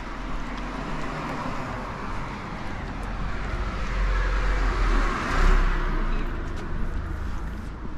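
A car driving past on the street: tyre and engine noise swells to its loudest about five seconds in, then fades away.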